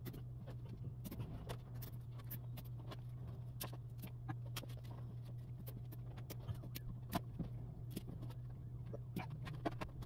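Faint, irregular clicks and rustles of speaker wire and plastic zip ties being handled and fastened to the factory wiring loom inside a car door, over a steady low hum.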